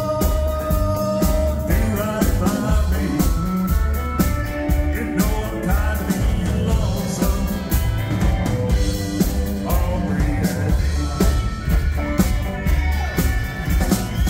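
Live country band playing with a steady drumbeat: upright bass, drum kit, electric lead guitar and pedal steel guitar.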